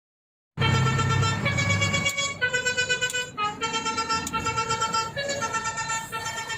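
Truck telolet horn, a multi-note air horn, playing a tune of stepped notes, each held about half a second to a second. It starts abruptly about half a second in, with a low engine rumble under the first notes.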